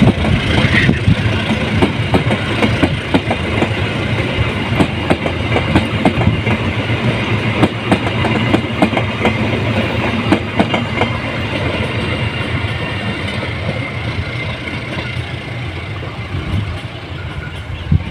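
A long passenger train's coaches rolling past on the rails, their wheels clacking irregularly over rail joints under a steady rumble. The sound fades gradually as the train draws away.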